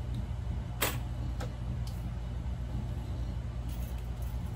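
Small plastic toy-kitchen pieces clicking and tapping as they are handled, a few sharp clicks with the loudest about a second in, over a steady low hum.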